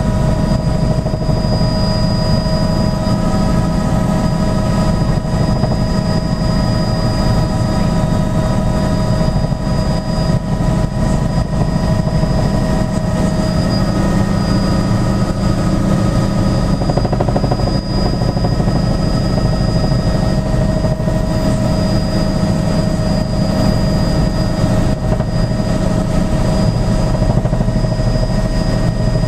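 Tour helicopter in steady cruise, heard from inside the cabin: a constant low engine-and-rotor drone with several steady high-pitched whines over it.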